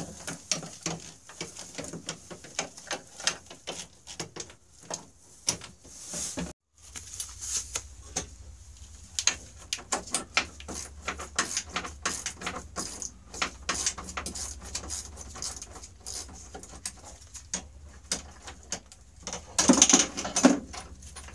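Hand wrench and ratchet clicking and metal tools clinking as a snowmobile engine-mount bolt and nut are worked loose, with a louder burst of metal noise near the end as the bolt comes free.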